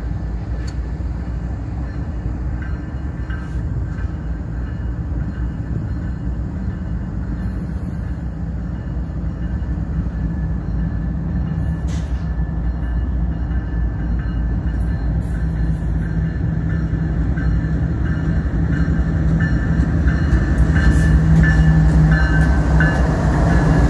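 Approaching Canadian National freight train's diesel locomotives: a steady low engine rumble that grows gradually louder as the lead locomotive draws alongside near the end.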